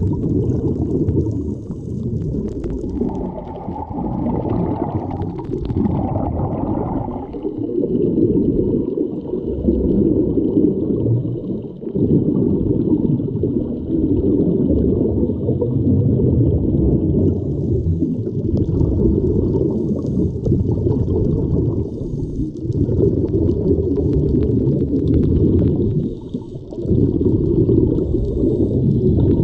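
Muffled underwater rumble and water noise picked up by a submerged camera moving through the sea with a swimmer, rising and falling in uneven surges.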